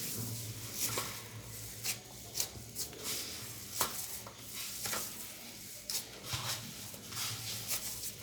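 Hands mixing barley-flour dough with water and sourdough starter in a dish: irregular knocks and scrapes against the dish, over a low steady hum.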